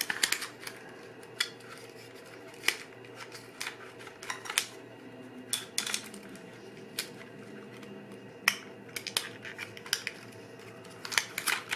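Irregular small clicks and taps of a 35 mm film strip and the plastic Holga 135 camera body as the film leader is worked into the take-up spool slot, about one every second or so.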